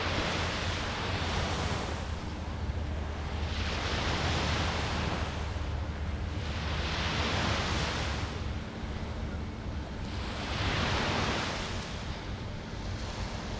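Small ocean waves breaking and washing up the sand at the shoreline, swelling and fading in turn with a fresh wash about every three to four seconds, over a low, steady rumble of wind on the microphone.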